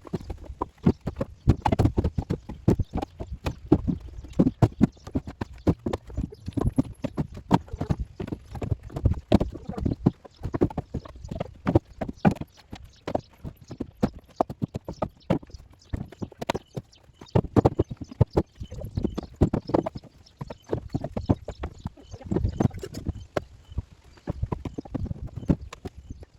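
Sawmill wood ends being tossed into a truck bed one after another: a rapid, irregular clatter of hollow wooden knocks and thunks.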